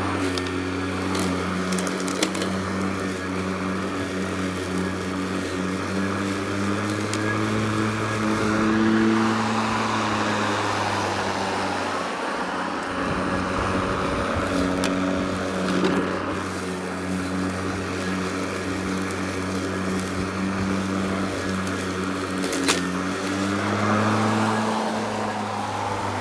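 Worx WG749 40V brushless self-propelled lawn mower running while cutting grass: a steady motor-and-blade hum that rises briefly in pitch twice, about a third of the way in and near the end, and weakens for a few seconds midway as the mower moves away. A few sharp ticks break through the hum.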